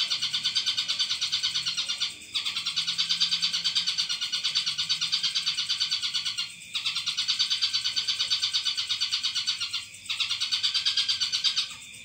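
A loud, high-pitched, rapidly pulsing buzz in long even runs of a few seconds, broken by short gaps three times.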